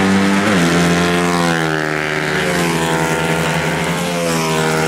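CG300-class racing motorcycle engines running hard, several at once, their notes rising and falling with the throttle. One engine's pitch drops sharply about half a second in.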